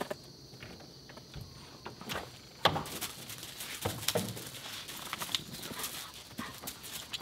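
A sharp clack about two and a half seconds in as a door is opened, then dogs rush out over a gravel path in a quick run of paw scuffs and clicks.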